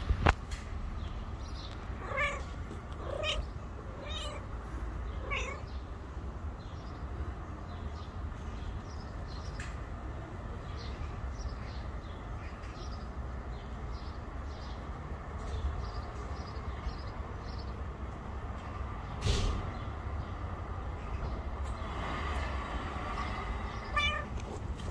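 Tabby-and-white cat meowing in short calls, about four in a row in the first few seconds, then fainter calls later on. There is a single sharp tap about two-thirds of the way through.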